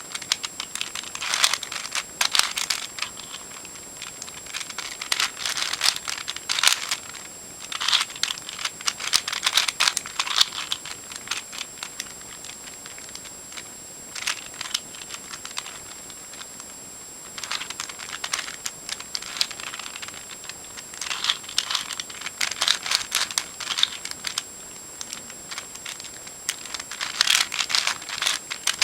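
Plastic Eastsheen 4x4 puzzle cube being turned by hand during edge pairing: quick runs of clicking, rattling layer turns, with short pauses between them.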